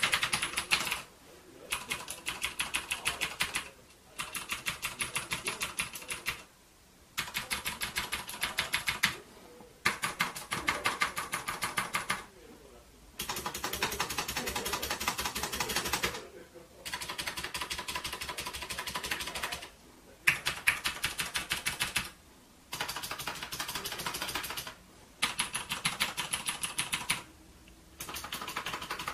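Typing on an MStone JAKI keyboard: fast runs of keystrokes, many clicks a second, in bursts of two to three seconds with short pauses between.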